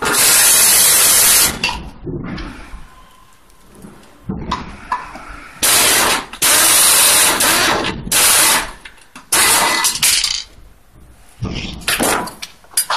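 Pneumatic screwdriver driving screws into a metal chair frame: loud bursts of air hiss, one long burst at the start, then several shorter ones from about halfway through and a brief one near the end.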